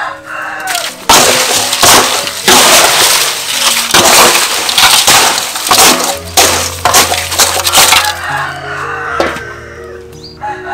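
Crushed ice tipped from an aluminium bowl onto fish in another aluminium bowl, crunching and clinking against the metal in several loud pours that stop about two seconds before the end. Background music plays underneath.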